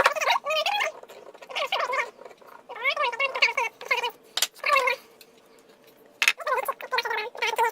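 A cat meowing over and over, in short calls of half a second to a second whose pitch bends up and down, one about every second.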